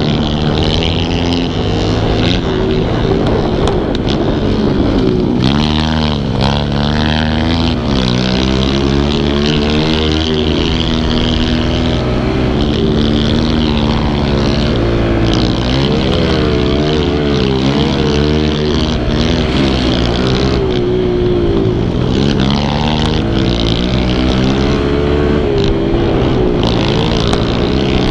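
Kawasaki KLX110 pit bike's single-cylinder four-stroke engine under riding load, its pitch rising and falling again and again as the throttle is opened and rolled off.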